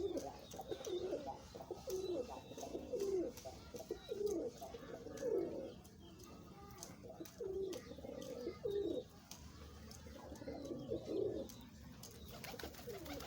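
Domestic pigeons cooing, a run of low repeated coos that dies away near the end.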